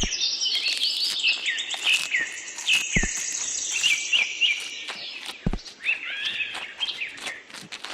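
Several small birds chirping and twittering in quick, overlapping calls. Two brief sharp knocks sound about three and five and a half seconds in.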